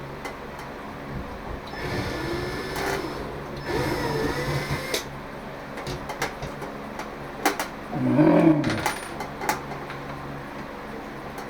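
Cordless drill-driver running in two short runs of about a second each, its whine dipping and rising in the second as it backs screws out of a ceiling light fixture, with scattered clicks and taps of metal. A short low vocal sound comes about eight seconds in.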